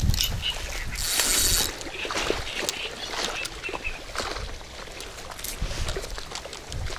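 Water splashing and sloshing at the reed-lined shallows as a hooked silver carp is fought on a spinning rod, with many small clicks and a brief hiss about a second in. Low rumbling gusts of wind on the microphone come near the start and again near the end.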